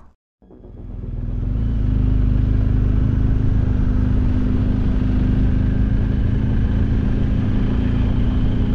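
BMW R 1250 GS Adventure's boxer-twin engine running at a steady cruise, heard from on the bike with wind and road noise. The sound fades in from a moment of silence over the first two seconds, then holds steady.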